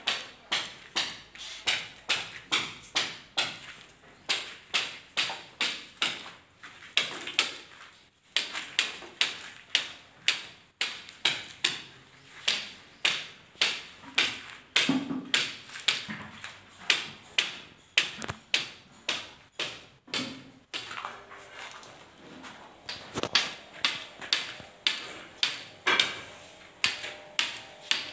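Sharp clicks or taps repeating at a steady, even rate of about two to three a second, with a couple of brief pauses.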